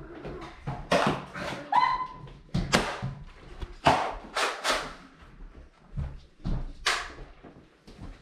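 A series of irregular thumps and knocks, about five of them louder than the rest, with a brief high squeak about two seconds in.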